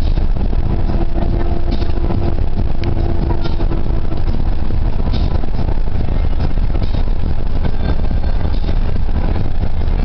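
Engine and road noise of a Kia diesel bus travelling at highway speed, heard from inside the cabin: a steady low-pitched drone with no letup.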